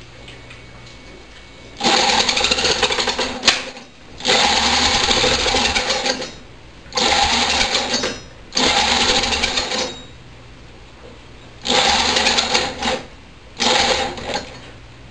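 Small single-cylinder engine running on HHO gas with no carburettor, spun over by an electric drill on its shaft in six separate bursts of one to two seconds each. A sharp pop comes about three and a half seconds in.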